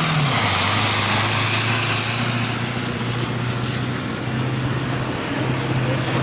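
Farm tractor's diesel engine under full load pulling a sled: its note drops in pitch about half a second in as the engine lugs down, then holds steady, with a thin high whistle above it. It grows fainter over the last few seconds as the tractor pulls away.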